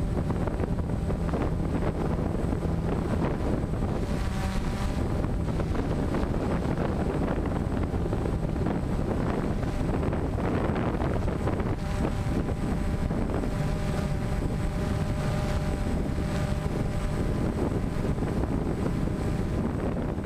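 DJI Phantom quadcopter's motors and propellers humming steadily, recorded from the aircraft itself, with wind buffeting the microphone. The hum's pitch shifts slightly now and then as the drone adjusts its motors.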